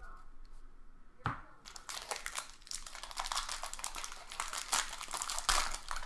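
Foil wrapper of a Bowman Draft baseball card pack being torn open and crinkled: a knock about a second in, then dense, continuous crackling.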